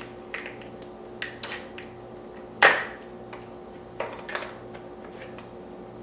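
Hard plastic parts of a small accessory being pulled apart and handled: light clicks and rattles, with one loud snap about two and a half seconds in. A faint steady hum runs underneath.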